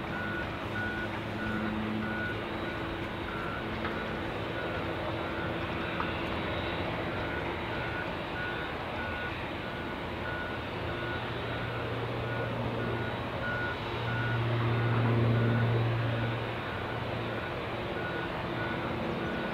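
Boeing 787-9 airliner taxiing, its jet engines a steady low rumble that swells for a few seconds past the middle. A reversing alarm beeps about twice a second.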